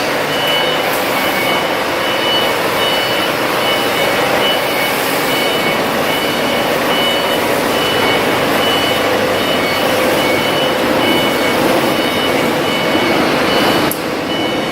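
Diesel engine of a 900 kVA Cummins generator set running steadily under a loud, even noise, with a high electronic beep repeating about once a second.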